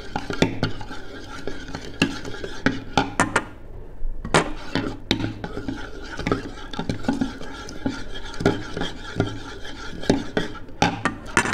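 Metal utensil beating a pudding batter of milk, egg and sugar in a bowl by hand, with quick, irregular clinks and scrapes against the bowl.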